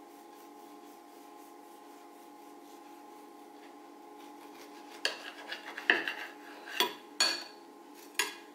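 Knife sawing down through an iced loaf cake and scraping and clinking against the china plate beneath, quiet at first, then several loud scrapes and knocks in the second half.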